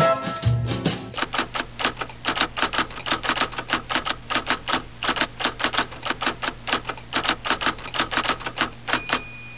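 Typewriter keys clacking in a rapid, uneven run of strokes, several a second, stopping about nine seconds in, over a low steady hum.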